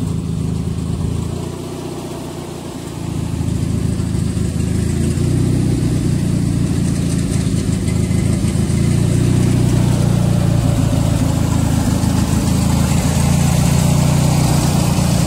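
An engine running steadily at idle, getting louder about three seconds in and holding there.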